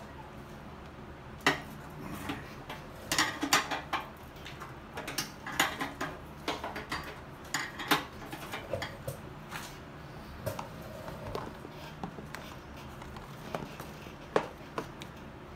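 Metal hand tools and parts clinking and tapping as a wrench is worked on fittings, a string of irregular sharp clicks that is busiest in the first half and thins out later.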